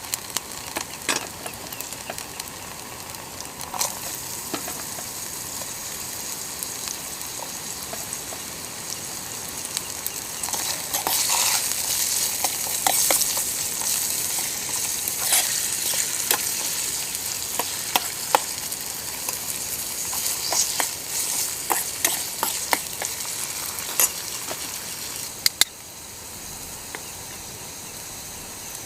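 Food sizzling as it fries in a pan, with sharp pops and clicks scattered through. The sizzle gets louder about a third of the way in and eases off near the end.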